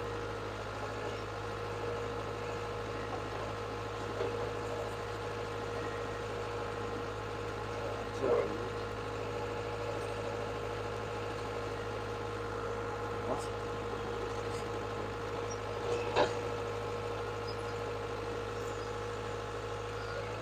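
Caterpillar 287B skid steer's turbocharged diesel engine running steadily at an unchanging speed, with two brief knocks about eight and sixteen seconds in.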